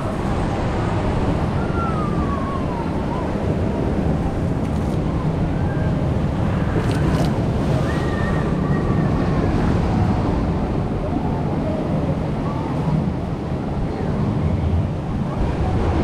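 Steady rush and churn of water around a round river rapids raft as it floats down the channel, with wind rumbling on the microphone.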